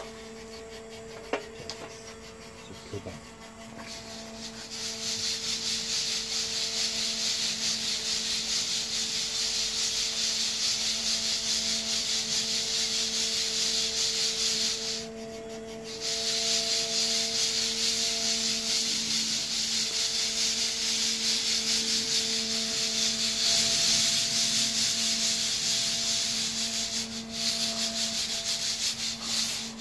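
Freshly roasted coffee beans being shaken and tossed in a stainless mesh sieve to cool them quickly so they stop roasting from their own heat: a dense, steady rattling rustle that starts about four seconds in, after a few sharp clicks, and breaks off briefly about halfway.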